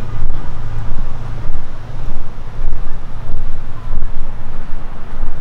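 Wind buffeting the camera microphone: a loud, uneven low rumble that swells and drops every second or so.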